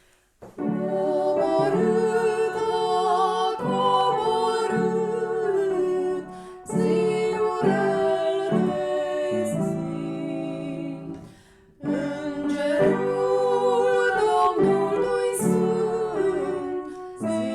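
Music opening a Romanian Christmas carol (colindă): sustained melodic lines over a low held accompaniment, in three phrases with short breaks about six and eleven seconds in.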